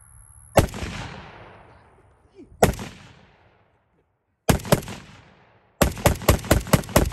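Zastava ZPAP M85 AK-pattern pistol in 5.56×45 firing outdoors: two single shots about two seconds apart, then a quick pair, then a rapid string of about seven shots near the end. Each shot rings out briefly.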